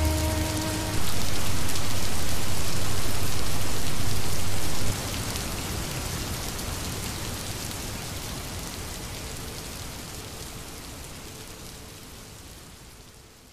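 Steady rain falling, louder for a few seconds near the start and then fading out slowly. The last held notes of background music end about a second in.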